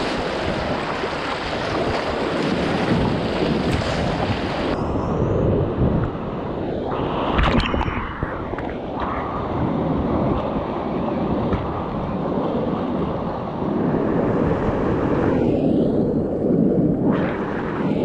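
Whitewater rapids rushing, a loud and steady noisy roar with wind buffeting the microphone. The sound's character shifts abruptly about five seconds in and again near sixteen seconds.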